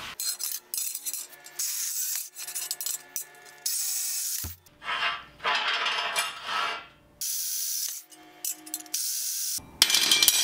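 Lengths of steel round stock scraping and clattering against a metal work table, the rods ringing faintly, with a single thud about four and a half seconds in. Near the end a rod is dropped onto the concrete floor with a sharp clatter.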